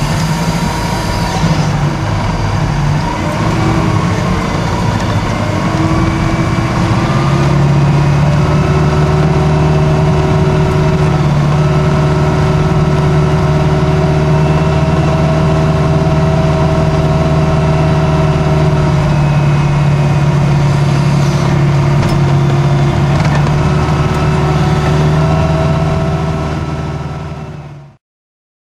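Caterpillar IT28 wheel loader's diesel engine heard from inside the cab. It rises in pitch a few seconds in, then holds a steady drone with thinner whining tones above it. The sound fades and cuts off near the end.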